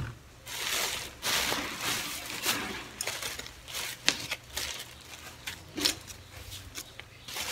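Thin plastic carrier bag rustling and crinkling in bursts as takeout food containers and small bags are pulled out of it, with a few light knocks of items set down on a table.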